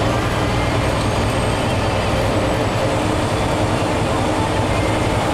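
Truck's diesel engine and road noise heard inside the cab while driving at road speed: a loud, steady low drone.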